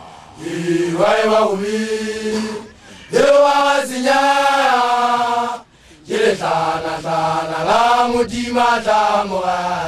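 Male voices chanting a Sesotho initiation-school song, in three long sung phrases with short breaks between them.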